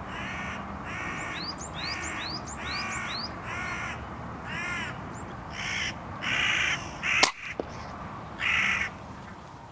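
Hooded crow calling: a series of harsh caws, roughly one a second, with fainter high rising chirps over the first few. A single sharp click sounds about seven seconds in.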